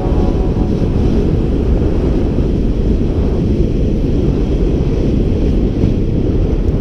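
Wind rushing over an action camera's microphone during a fast downhill ski or snowboard run: a loud, steady low roar.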